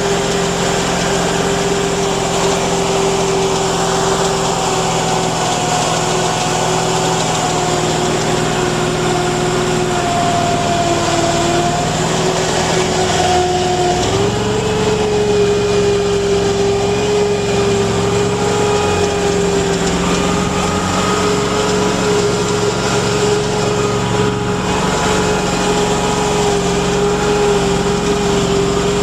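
Engine of a Mudd-Ox 8x8 amphibious ATV on Adair tracks running under load, heard from the vehicle's back seat. Its steady note sags slightly, then picks up in pitch about halfway through and holds there.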